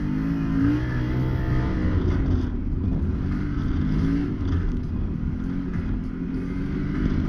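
Can-Am Maverick Sport X mr side-by-side engine running under throttle on a trail. It revs up over the first two seconds, then rises and falls as the throttle changes.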